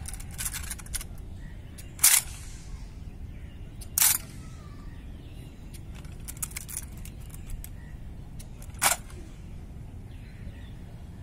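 A squad doing rifle drill in unison: sharp slaps and knocks of hands, rifles and boots, with three loud strikes about two, four and nine seconds in and lighter ragged clicks between them.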